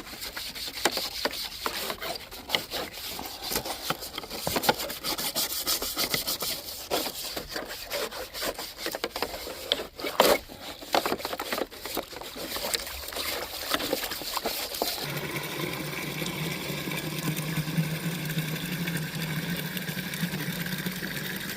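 Scrub brush scrubbing a chicken waterer in quick, irregular scratchy strokes. About two-thirds of the way in the scrubbing gives way to a steadier noise with a low hum.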